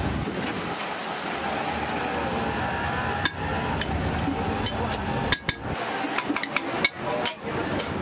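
Metal spatulas knocking and scraping on large iron dosa griddles: a sharp clink about three seconds in, then a cluster of knocks in the second half, over a steady background hiss of cooking and stall noise.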